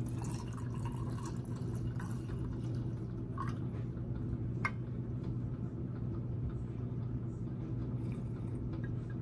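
Red wine poured from a glass bottle into a stainless steel tumbler, the last of the bottle trickling out, with two short drips about halfway through. A steady low hum runs underneath.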